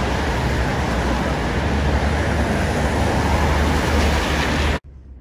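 Road traffic: cars driving past on a wide city road, a loud, steady noise with a deep rumble. It cuts off suddenly near the end.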